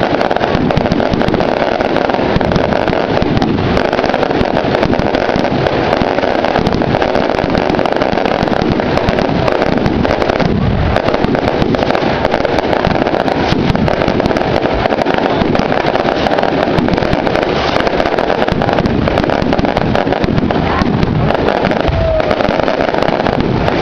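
Large bonfire burning, with dense continuous crackling and popping over a steady low rumble.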